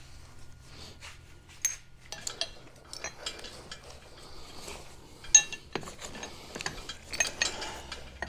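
Scattered metallic clinks and knocks of tools and hardware being handled, with a louder ringing clank a little past halfway.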